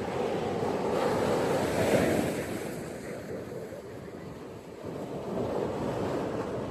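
Ocean surf on a beach: a wave breaks and washes in about two seconds in, falls away, and the surf builds again near the end.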